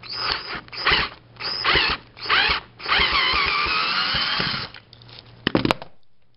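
Power drill backing out a screw with a stripped head, gripped through a piece of rubber band: several short bursts of the motor, then a steady run of about two seconds with a rising whine as the screw comes up. A couple of sharp knocks near the end.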